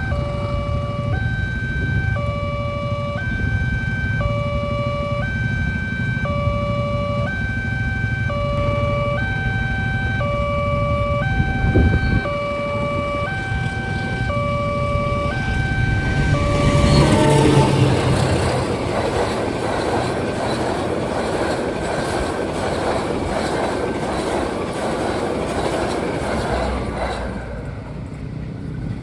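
Railway level-crossing barrier alarm sounding, an electronic chime switching back and forth between two notes about twice a second over a low engine rumble. About two-thirds of the way through the alarm stops and a loud rushing, rumbling noise swells up, holds for several seconds and fades near the end.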